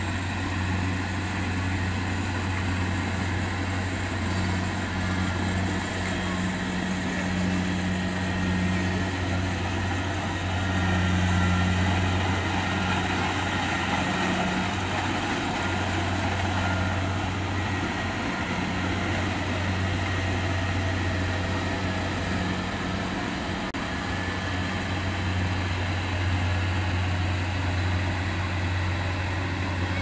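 Kubota DC-70 combine harvester's diesel engine running steadily as the machine cuts rice: a steady low hum that swells and dips a little, under a constant machine noise.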